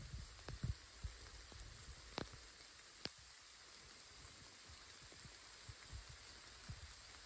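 Light rain pattering steadily, with soft footsteps on the forest floor and two sharp clicks about two and three seconds in.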